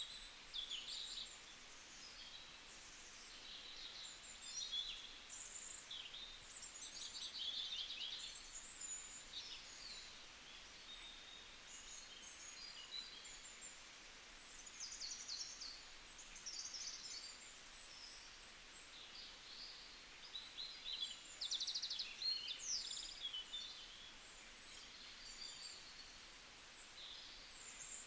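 Several small songbirds chirping and trilling, many short high calls overlapping with one another, over a faint steady background hiss.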